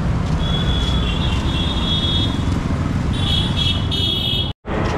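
Road traffic with a steady low rumble and vehicle horns honking, one long honk and then three short ones. The sound cuts out completely for a moment near the end.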